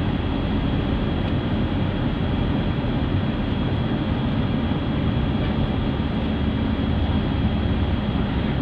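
Steady road and engine noise of a vehicle on the move, heard from inside, a low rumble with a faint high whine held steady above it.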